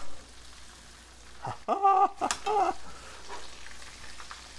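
Flour-coated bass fillets frying in peanut oil at about 360 °F, a steady sizzle, as they are turned over with metal tongs after two minutes on the first side. A brief high-pitched vocal exclamation comes about two seconds in.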